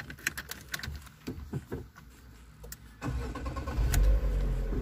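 A few light clicks and knocks, then about three seconds in a car engine starts: a sudden low rumble that swells for a moment and settles into a steady idle.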